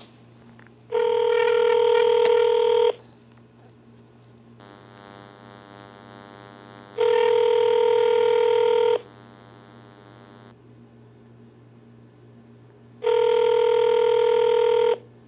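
Telephone ringback tone heard over the phone line: three steady two-second rings about six seconds apart, the call ringing unanswered at the other end.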